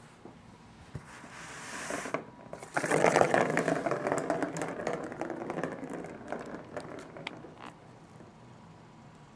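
Scraping and crackling of cardboard with rapid clicks as a cat scrabbles at a cardboard box. A hiss comes first, then a loud burst near three seconds in that fades off over the following few seconds.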